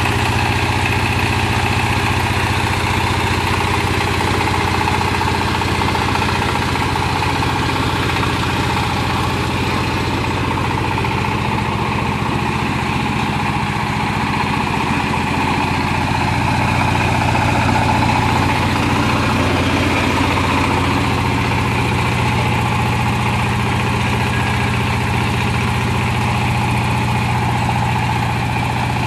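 16 hp diesel engine of a mobile cable-pulling winch running steadily, swelling slightly in loudness about two-thirds of the way through.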